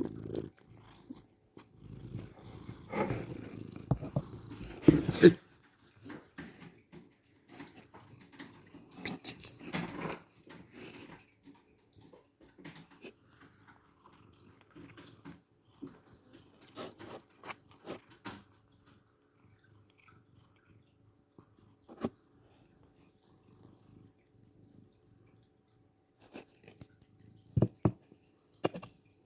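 A cat snoring in its sleep: rough, uneven breathing sounds, loudest in the first five seconds, fainter through the middle, and louder again near the end.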